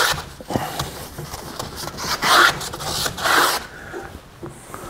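Paper towel rubbing over the glass of a wood heater door, drying it after it has been cleaned with spray cleaner: a series of swishing wipes, loudest between about two and three and a half seconds in, then fading out.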